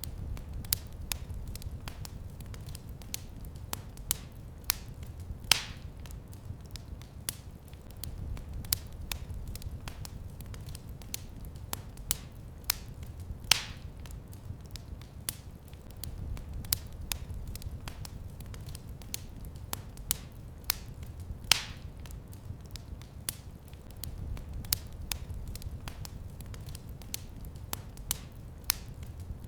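Wood fire crackling in a fireplace: a continuous low rumble under many small crackles, with a louder sharp pop about every eight seconds.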